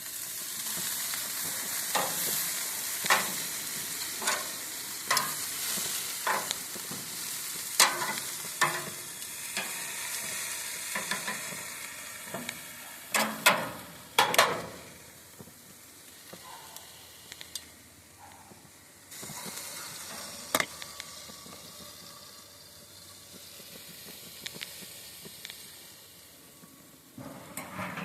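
Marinated chicken sizzling on a propane grill, with sharp clicks and taps scattered through it, most in the first half. The sizzle is strongest in the first half and dies down later.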